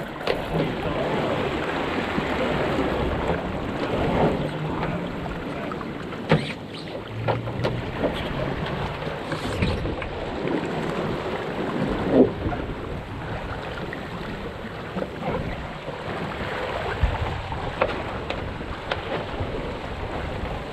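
Water rushing along the hull of a National 18 sailing dinghy under way, mixed with wind buffeting the microphone. A few sharp knocks from the boat come through it.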